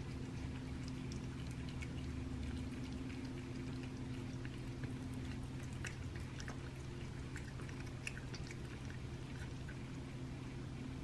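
Domestic cat eating wet raw rabbit meat from a paper plate: scattered small wet clicks and smacks of chewing and licking, over a steady low hum.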